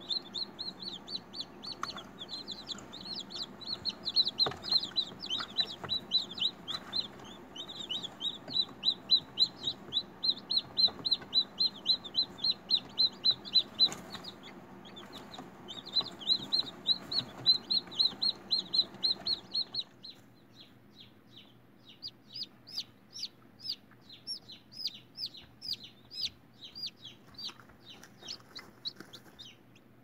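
Newly hatched chicken chicks peeping: rapid, high cheeps several a second over a steady background noise. About twenty seconds in, the background noise stops and the peeps come fewer and more spaced out.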